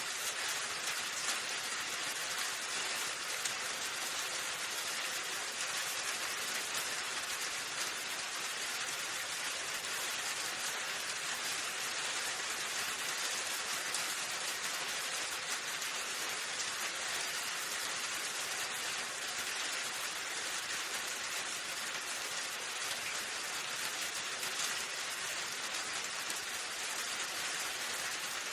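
Steady rain, an even hiss of many drops falling on a surface, with no thunder or change in strength.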